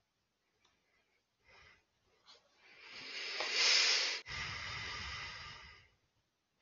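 A long, deep breath close to a headset microphone: a hissing in-breath that swells, a short break, then an out-breath that blows on the microphone with a low rumble.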